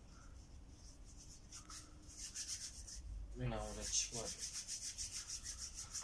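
Rapid, even back-and-forth rubbing strokes, starting about a second and a half in and keeping a steady rhythm.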